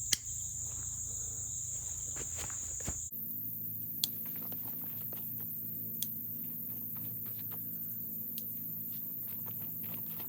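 Sharp snips of cutters clipping the tails off plastic zip ties: one loud snip at the start, then single clicks about every two seconds. Steady high insect buzzing runs underneath, changing pitch abruptly about three seconds in.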